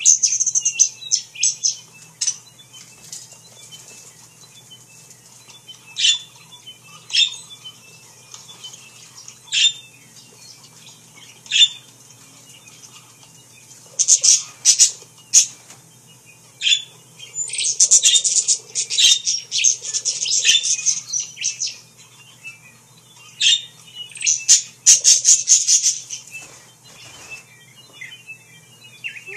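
Parakeets (budgerigars) chirping and chattering in short spells, with quieter gaps between, busiest in the second half.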